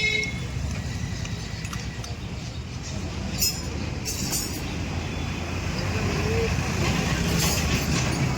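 Steady low rumble of motor vehicle engines and road traffic, with a couple of short, sharp high sounds a few seconds in.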